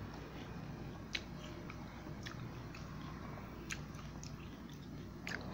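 Chewing a crisp bite of Indian jujube (bidara fruit): a few scattered crunches over a low steady hum.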